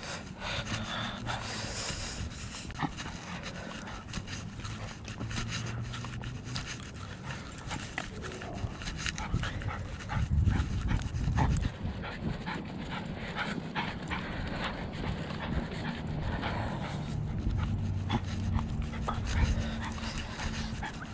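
Panting breaths close to the microphone, with a steady patter of footsteps and clothing rustle from walking. A low rumble swells briefly about halfway through.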